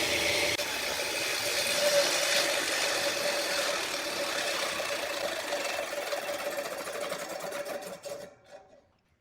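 Homemade table saw running steadily with a constant whine, then cutting off about eight seconds in and dying away within a second.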